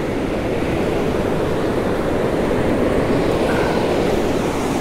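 Steady rush of ocean surf washing up the beach, with low, uneven rumbling beneath it.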